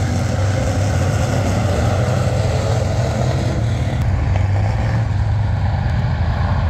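Engines of several Pure Stock dirt-track race cars running together in a loud, steady drone.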